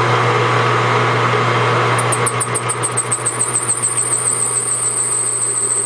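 Machine tool motor running steadily while the cutter takes a light cut. From about two seconds in a high-pitched pulsing squeal from the cutting starts; the pulses come faster until they merge into a steady whine near the end.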